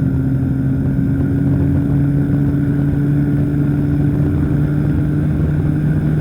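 Powered parachute's engine and propeller running steadily in flight: a constant drone whose pitch holds steady.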